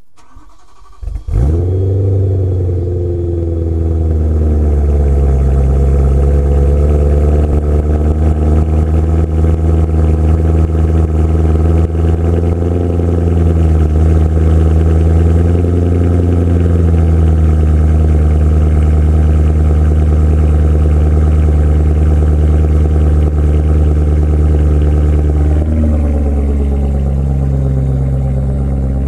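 BMW E90 M3's 4.0-litre V8 cold-starting through a Meisterschaft GT aftermarket exhaust. It catches about a second in with a brief flare, then settles into a steady fast cold idle. Near the end the idle drops a step lower.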